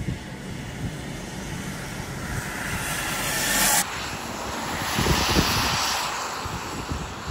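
Steady rushing storm wind, buffeting the microphone and building over the first few seconds, then cutting abruptly to a similar roar with low gusts about four seconds in.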